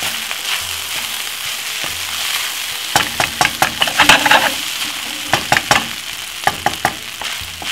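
Vegetable fried rice sizzling with a steady hiss in a hot non-stick wok. From about three seconds in, a wooden spoon stirring and tossing it scrapes and knocks against the pan in quick clusters of clicks.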